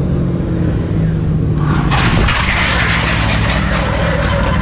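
Motorcycle engines running at idle, then from about two seconds in a loud scraping rush: a motorcycle's tire sliding out on gravel and the bike skidding down on the road.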